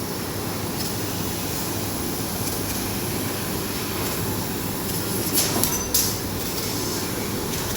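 CNC machine running with a steady mechanical rumble and hiss, broken by two short, sharp hissing clicks about five and six seconds in.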